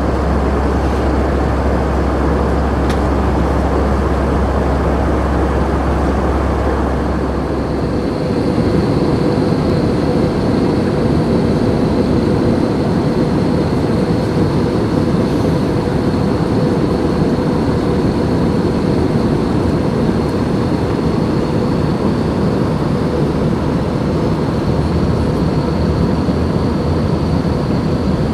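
Steady cabin noise of an Airbus A319-111 with CFM56 engines in flight: the engines' drone and rushing airflow, with a thin steady whine. A deep hum under it stops about eight seconds in.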